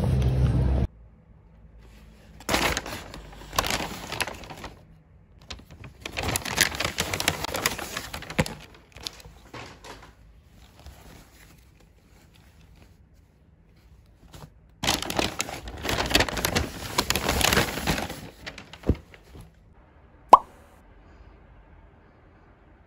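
A loud busy din that cuts off about a second in, then paper and fabric rustling in three bouts as new clothes are handled out of a paper shopping bag. A sharp click comes after the last bout, and a short high blip shortly after that.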